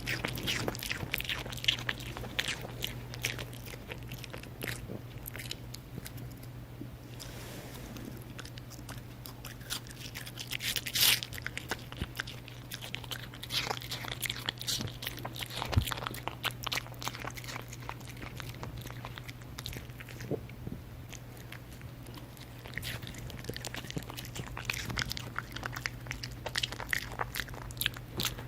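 A Pomeranian biting and chewing crisp Korean pear, crunching in irregular clusters of short bites, loudest about eleven seconds in, over a steady low hum.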